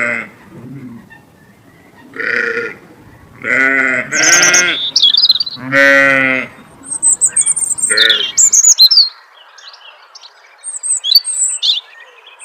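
Goats bleating, about six calls with the longest about six seconds in. Small birds start chirping near the end of the bleating and carry on alone after it stops, about two-thirds of the way through.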